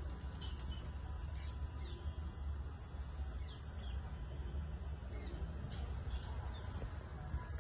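Low steady hum, with faint short chirps of small birds now and then.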